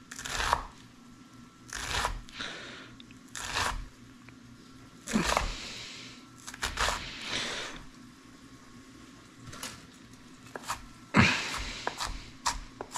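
Chef's knife dicing a red onion on a wooden cutting board: scattered crunching slices and knife taps on the board, quickening into rapid chopping near the end.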